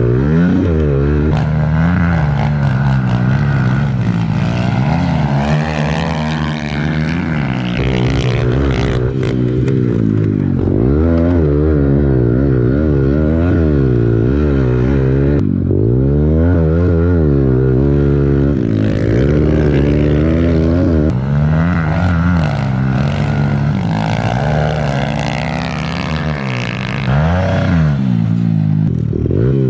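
Small pit bike engine revving hard and dropping off again and again as the bike accelerates, shifts and slows for corners. Its pitch climbs and falls every second or two, and it is heard close up from on the bike.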